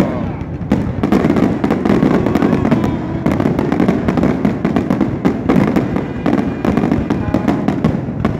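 Aerial fireworks going off in a rapid barrage: many bangs and crackles overlapping one another, with no pause.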